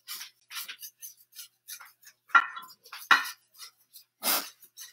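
A whisk scraping and clinking against a stainless-steel saucepan as mustard is stirred into a butter-and-flour roux. It gives irregular light scrapes, with a few louder metallic clinks about two, three and four seconds in.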